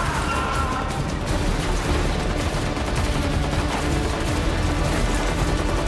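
Sustained rapid gunfire from automatic weapons, the shots too close together to count.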